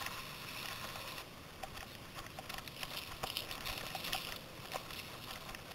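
Mountain bike riding noise: a steady rush of wind and tyres on the trail with scattered small clicks and rattles from the bike over rough ground. The noise changes character about a second in.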